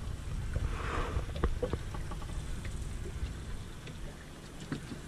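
Choppy sea water lapping and splashing against a small boat's hull, over a steady low rumble of wind on the microphone, with a few small knocks.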